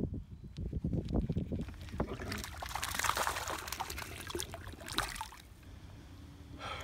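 Small knocks and clicks, then a small hooked bass splashing at the water's surface for a couple of seconds as it is reeled in.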